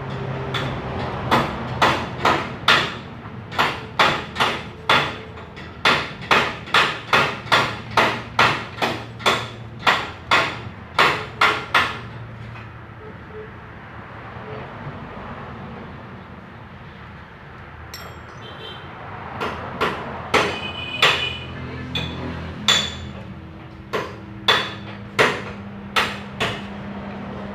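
Hammer blows at about two a second: a run of some twenty strikes, a pause of several seconds, then a second, more spaced run of about ten.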